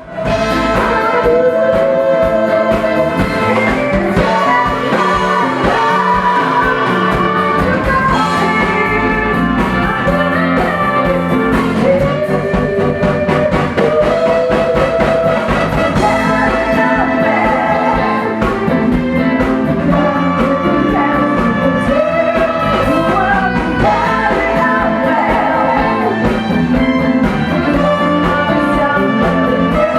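A live rock and roll band playing, with a woman singing the lead vocal over a steady beat.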